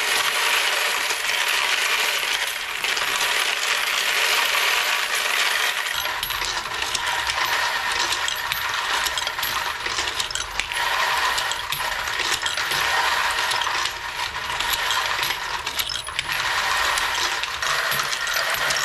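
Loose 9mm brass cases clattering and jingling against each other as they churn in the case sorter's feed hopper, a dense continuous metallic rattle. A low machine hum joins about six seconds in.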